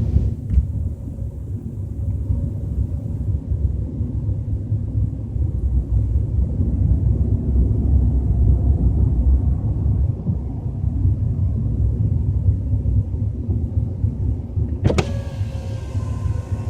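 BMW 320i heard from inside the cabin while driving at low speed, dominated by a deep, steady rumble. This is the unexplained low rumble the owner hears at 30 to 40 km/h. A sharp click comes about fifteen seconds in.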